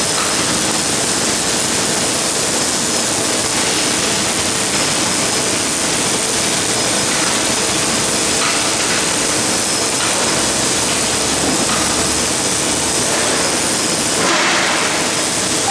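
MIG welding arc on an automatic CNC gantry welder, a steady loud hissing noise with a brief change near the end.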